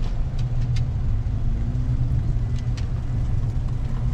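Steady low rumble with a few light clicks as a food tray is set down on a floor mat and a dog starts eating from it.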